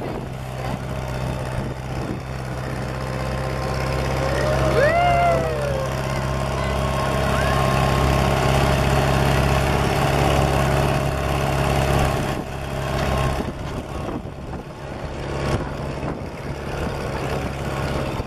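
Farm tractor engine running steadily as the tractor drives along, with a brief rising-and-falling squeal about five seconds in. The engine note drops about thirteen seconds in.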